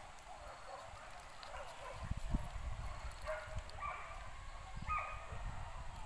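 Faint hunting-dog barks, a few short ones spaced more than a second apart in the second half, over a low rumble.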